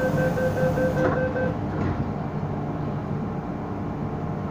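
MTR M-Train door-closing warning: a rapid, steady beeping that stops about a second and a half in as the doors shut with a knock. After that the carriage's steady low rumble carries on.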